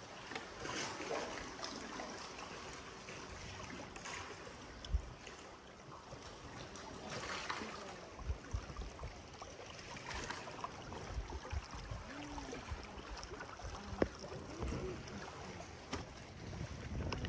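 Water splashing and lapping around a small boat, in uneven surges, with gusts of wind buffeting the microphone and occasional low thumps.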